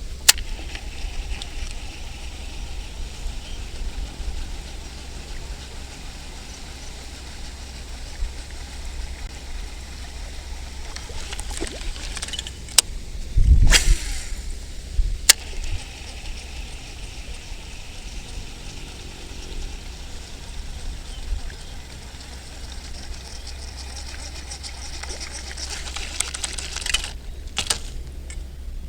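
Strong wind buffeting the microphone outdoors: a steady low rumble with a rushing hiss over it. A few sharp clicks come through, and there is one louder burst about halfway.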